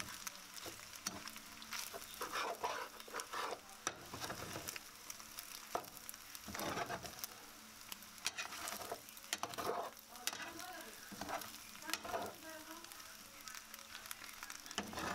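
Slotted spatula stirring and tossing penne with minced meat in a non-stick frying pan, with irregular scrapes and clicks over a soft, steady sizzle of the food frying.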